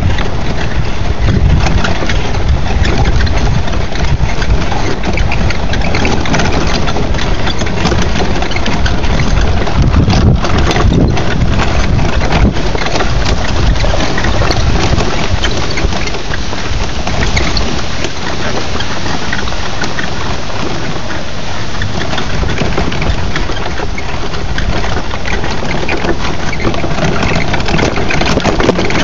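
Engine of a small quad bike running while being ridden, mixed with heavy wind rumble on the phone's microphone.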